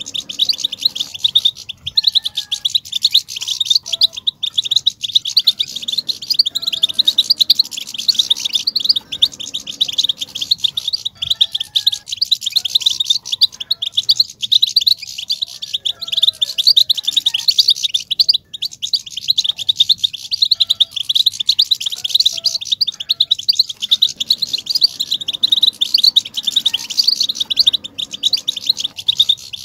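European goldfinch chatter: a dense, unbroken run of rapid high twittering chirps. It is the excited 'batbata' chatter that keepers play to agitate a male goldfinch into singing.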